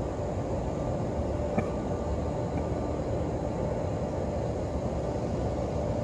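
Steady outdoor ambient rumble and hiss from the crowded mosque surroundings, with a faint click about one and a half seconds in.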